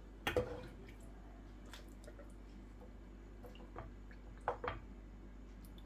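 Wooden spoon scooping thick chickpea and meat stew out of a pot and dropping it into a serving bowl: a few soft, wet plops and light scrapes, the clearest about half a second in and a pair about four and a half seconds in.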